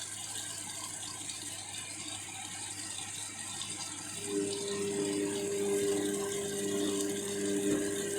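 Overloaded 7kg washing machine mid-wash: water swishing in the drum, then about four seconds in the drum motor starts up with a steady, pulsing hum, straining under a heavy wet load.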